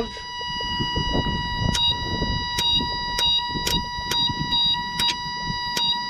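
Ignition points on a Case 1835B skid steer's distributor flicked open and shut by hand: a string of irregular sharp snaps of the coil's spark starting about two seconds in, the points now freshly gapped and cleaned and firing consistently. A steady high-pitched tone runs underneath.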